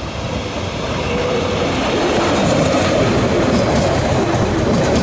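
Two coupled Bombardier Talent diesel multiple units running past close by, growing louder over the first two seconds as they draw level. After that comes a steady, loud rush of wheels on rails and running gear, with a few sharp clicks in the middle.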